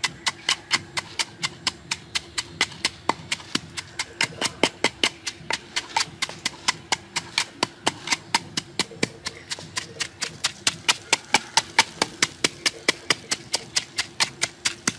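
Wooden pestle pounding red chillies and salt in a wooden mortar: sharp wooden knocks at a steady pace of about four to five a second, a little louder in the second half.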